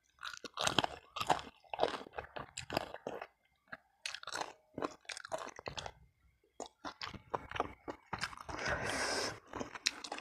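Close-up chewing and biting of tender braised chicken eaten by hand: irregular wet mouth clicks and bites. A denser, louder stretch of about a second comes near the end.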